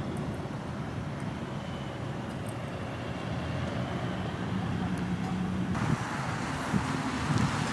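Busy parking-lot traffic noise: car engines running and vehicles moving through the lot, with a low steady hum for a couple of seconds past the middle.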